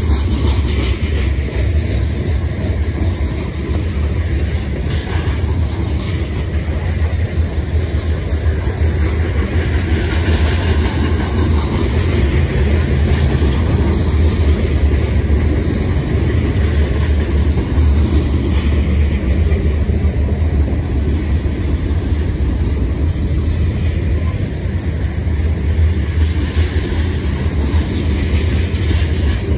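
Freight train of covered hopper cars rolling past: a steady low rumble of steel wheels on the rails.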